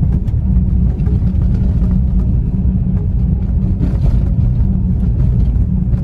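Steady low rumble of a car driving along a paved road, heard from inside the cabin: engine and tyre noise.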